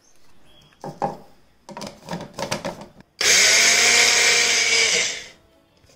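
A few knocks and rattles as rolled oats go into a small mixer-grinder jar. Then the electric mixer grinder runs loud and steady for about two seconds, grinding the dry oats to powder, and winds down.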